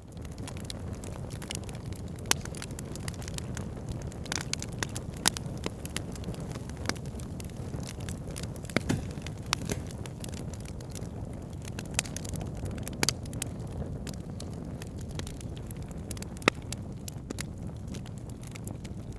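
A fire burning in a fireplace: a steady low rush with frequent sharp crackles and pops, a few of them noticeably louder.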